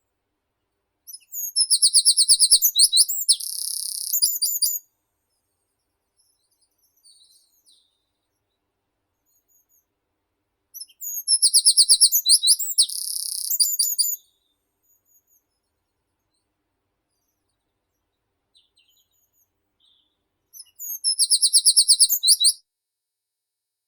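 A meadow songbird singing three songs with long pauses between them. Each song is a fast run of high repeated notes going into a dense trill, lasting about three seconds.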